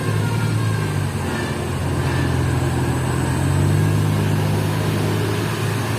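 Bus diesel engine running with a low, steady drone that grows a little louder and higher in pitch about halfway through.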